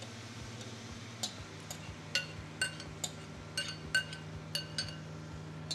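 A spoon clinking against a glass bowl and steel pan as tomato sauce is scooped out: about a dozen sharp, ringing clinks at an uneven pace, starting about a second in.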